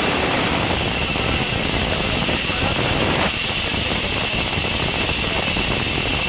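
Large vertical band saw running, its blade sawing through a timber plank being fed along the table, a loud steady whirring noise that shifts slightly about three seconds in.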